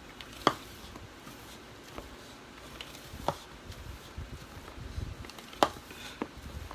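Silicone spatula knocking against the rim of a mixing bowl while soft cake batter is folded, with a few sharp taps, the loudest about half a second in and again near the end, over faint scraping.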